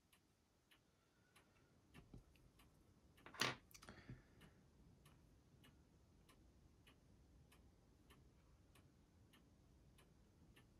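A clock ticking faintly and steadily, with one louder click about three and a half seconds in.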